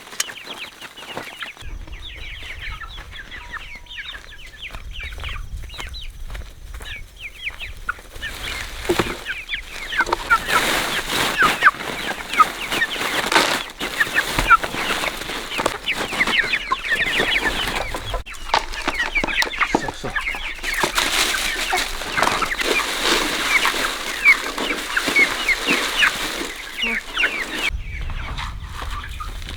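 A flock of chickens clucking and cheeping, with many short calls overlapping. The calls grow busier about a third of the way in and ease off near the end, over a low steady rumble.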